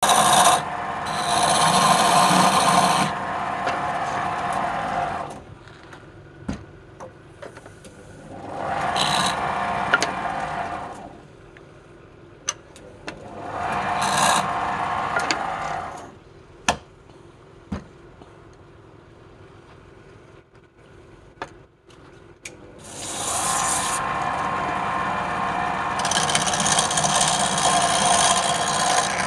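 Woodturning on a lathe: a turning tool cuts into spinning wood in four passes of a few seconds each. Quieter spells between the passes hold a few sharp knocks.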